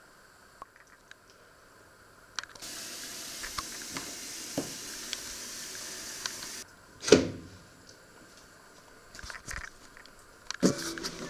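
Kitchen tap running in a steady hiss for about four seconds, then a loud ringing clank of stainless-steel cookware. Lighter knocks and a second clank follow near the end as the steamer insert goes onto the pot.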